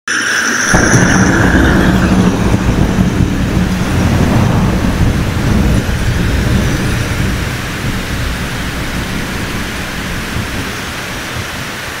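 Thunderstorm: rain hissing steadily, with a long roll of thunder that breaks in about a second in and slowly rumbles away.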